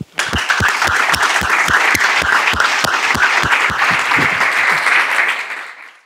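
Audience applauding, with one pair of hands clapping close and steady at about three to four claps a second; the applause dies away near the end.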